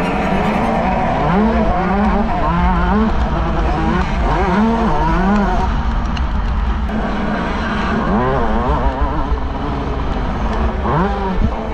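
125 cc two-stroke motocross bike engine revving hard, its pitch rising and falling again and again as the throttle is opened and shut and the gears change. There is a quieter spell midway, then sharp revs again near the end.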